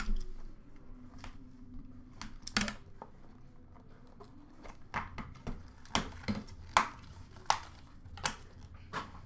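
Trading-card boxes being handled and opened: a cardboard box lid lifted off and boxes and cards set down in a plastic bin, making a series of sharp clicks and light knocks, mostly about a second apart in the second half.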